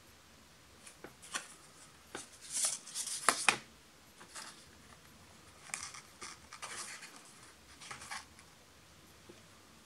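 A Xiaomi Mi Mix 2 phone and its cardboard box tray and inserts being handled by hand: a series of short scrapes, taps and rubs as the handset is fitted into the tray, loudest a little after three seconds in.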